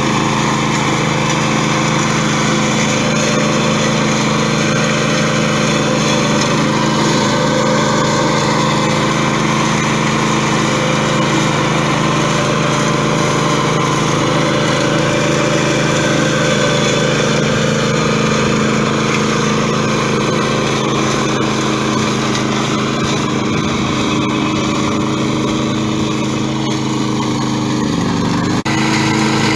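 BCS 740 Power Safe two-wheel tractor running steadily, driving a 90 cm RollerBlade vegetation shredder through tall weeds. The engine note changes abruptly shortly before the end.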